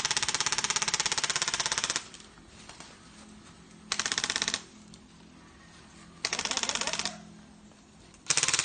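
Airsoft guns firing on full auto: a long burst of rapid shots lasting about two seconds, then three shorter bursts spaced a couple of seconds apart.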